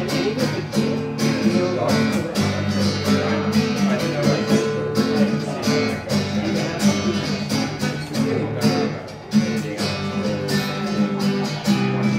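Acoustic guitar strummed in a steady rhythm, playing chords in an instrumental passage of a live song.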